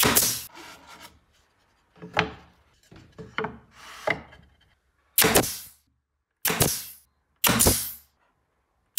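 Pneumatic nail gun firing four times into wooden boards: one shot at the start, then three more about a second apart in the second half, each a sharp crack that dies away within about half a second. In between, a wooden board knocks and rubs against the cabinet as it is set in place by hand.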